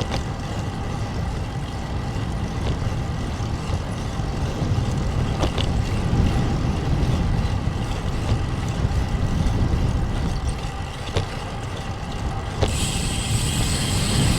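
Strong wind rushing over the action camera's microphone while riding a road bike, a steady low rumble mixed with tyre noise; a brighter hiss joins near the end.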